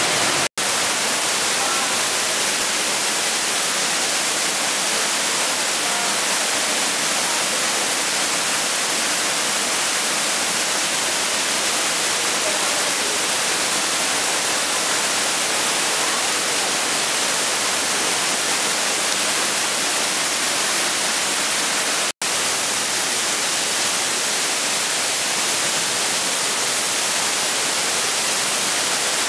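Steady rushing of the Hammersbach torrent and its waterfalls in a narrow rock gorge, a dense even hiss. It cuts out for an instant twice.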